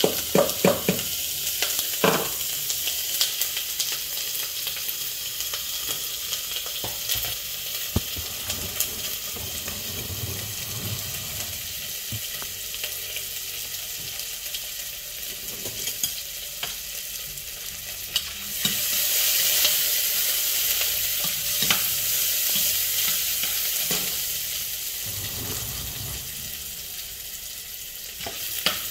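Sliced onions frying in hot vegetable oil in a stainless steel pot: a steady sizzle, broken by short clicks and knocks as the onions are tipped in and stirred with a metal spoon. The sizzle swells for a few seconds about two-thirds of the way in.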